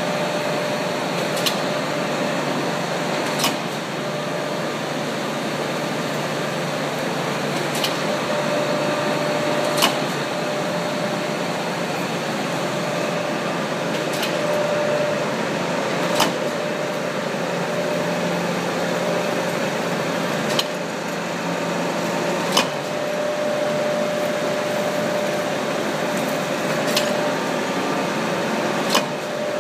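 Butler metal planer running as it cuts dovetails in forging saddles: a steady machine hum and whine, broken by sharp clacks in pairs about two seconds apart, a pair roughly every six and a half seconds, as the table reverses at each end of its stroke.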